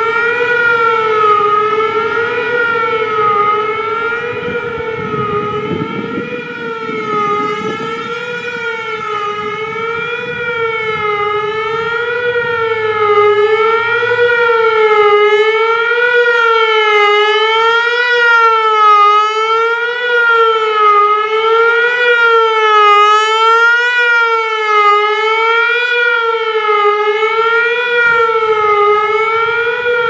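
Whelen WPS-3000 (WPS-3016) electronic outdoor warning siren sounding its fast wail signal. Its pitch rises and falls about once a second. The sound swells and fades slowly as the speaker head rotates.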